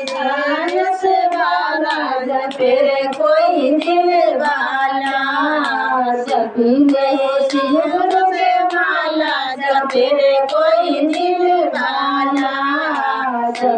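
Women's voices singing a Shiv charcha devotional bhajan together, a high, continuous sung melody, with steady hand claps keeping time about twice a second.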